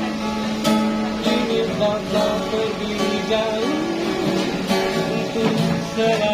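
Acoustic guitar strummed in a steady rhythm of chords, with a voice singing a slow melody over it.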